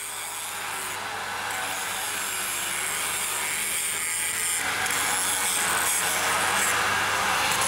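Angle grinder cutting into the steel plate of a steam-locomotive firebox: a harsh, continuous grinding hiss with the motor's whine wavering in pitch as the disc bites, growing gradually louder.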